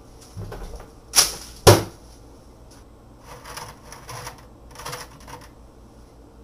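Two sharp knocks, then a run of softer clicks and clinks as a small glass cup is set down in the middle of a clear bowl of muddy water in a sink.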